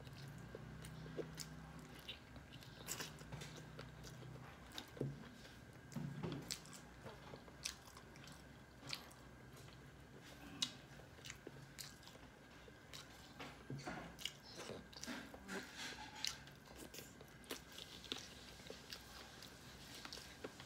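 Close mouth sounds of a person eating rice and chicken curry with her fingers: faint chewing with scattered wet smacks and clicks.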